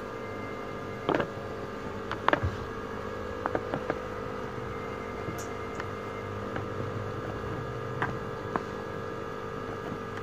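A steady hum holding several tones, with sharp taps of a spatula against the aluminium karahi at about one, two and three and a half seconds in, and two fainter clicks near the end.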